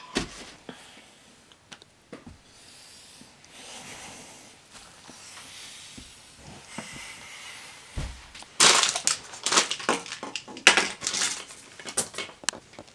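Shaky, heavy breathing and sniffing of a person crying, with a few soft knocks. About two-thirds of the way in, it gives way to a loud run of clattering and knocking as objects on a desk are handled and pushed about.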